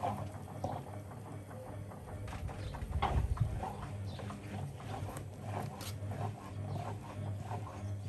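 Samsung front-loading washing machine turning its empty drum with the door open: a steady, pulsing motor hum with irregular light knocks and clatter, and a louder low thump about three seconds in.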